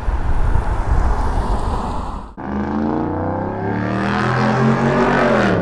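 A car drives past with a steady rumble of engine and tyre noise. It cuts off abruptly about two seconds in, and a motorcycle engine takes over, running with its pitch climbing and then falling near the end.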